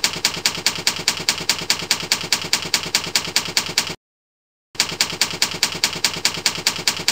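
Typewriter key-strike sound effect: an even run of sharp clacks at about six a second. It breaks off about four seconds in, stays silent for under a second, then starts again.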